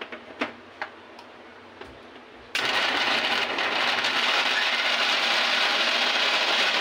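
A few clicks and knocks as the steel jar is seated on the mixer grinder. About two and a half seconds in, a Vijaylakshmi mixer grinder's motor starts and runs steadily, grinding pitted dates to a smooth paste.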